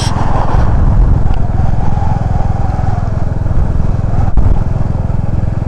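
Motorcycle engine running with wind and road noise while riding, heard from inside the rider's helmet with the visor open: a steady, loud, low rumble.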